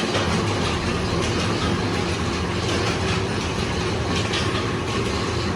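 Mustard-oil expeller (kohlu) running with a steady mechanical hum and clatter.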